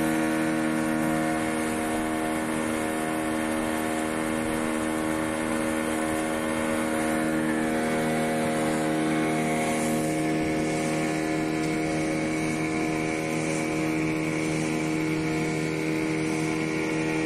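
Boat engine running steadily at constant speed, its even hum mixed with the rush of water and wind as the boat cruises. About ten seconds in, the engine note changes slightly.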